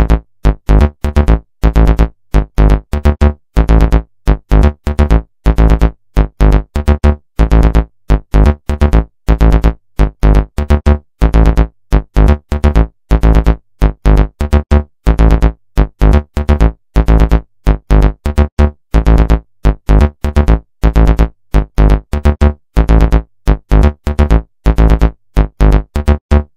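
Morse code keyed as a low buzzing electronic tone: a running string of short and long beeps with sharp starts and stops and silent gaps between them.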